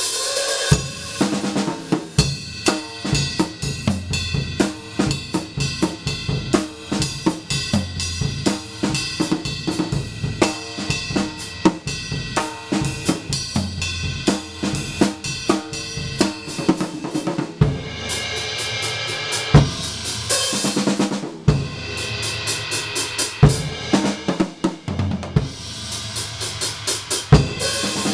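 Sound Percussion drum kit on its stock heads with Wuhan cymbals, played as a drum solo: fast, dense snare, tom and bass drum strokes. Crashing cymbals wash over the drums for a few seconds about two-thirds of the way through and again near the end.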